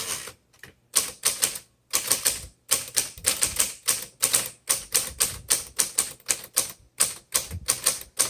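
Typewriter keys striking in quick, irregular runs of sharp clacks, several a second, broken by short pauses.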